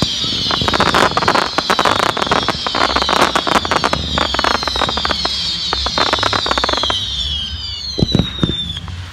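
Fireworks barrage: many overlapping whistles falling in pitch over dense, rapid crackling pops. The crackling stops about seven seconds in, the whistles die away a second or so later, and a couple of low thuds come near the end.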